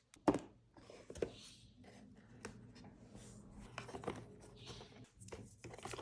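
Hands sorting small packets of repackaged decorative tape: rustling of plastic and paper with many light clicks and taps, and one louder knock near the start.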